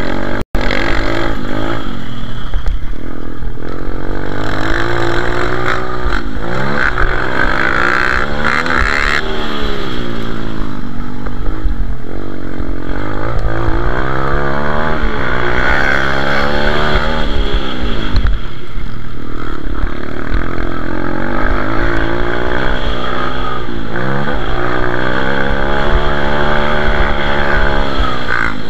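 Pit bike's small single-cylinder engine under hard riding. Its pitch climbs and falls again and again every few seconds as the throttle is worked and gears change. The sound cuts out for a split second about half a second in.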